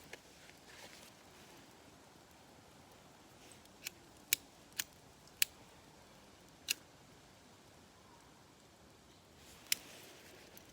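Small wood fire crackling in a compact fire stand: a handful of sharp, irregular pops over a faint hiss.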